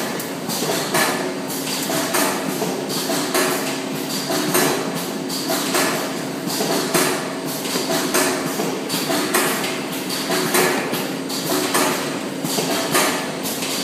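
Automatic carton gluing and sealing machine running: a steady mechanical hum with a regular clack about every two-thirds of a second as its mechanism cycles.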